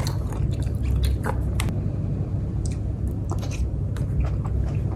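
A person chewing a mouthful of tomato close to the microphone, with many small wet clicks and smacks of the mouth, over a steady low hum.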